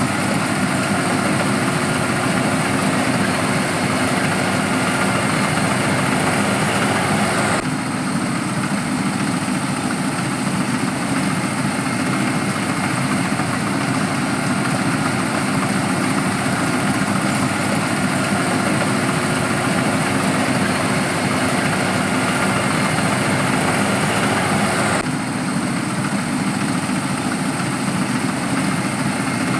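Rice harvesting machine's engine running steadily, its tone shifting abruptly about eight seconds in and again near the end.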